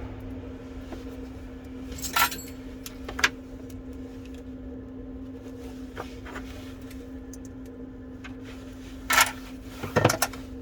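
Small hand tools and phone parts being handled, giving a few short sharp clicks and taps, two about two seconds in and two near the end, over a steady low hum.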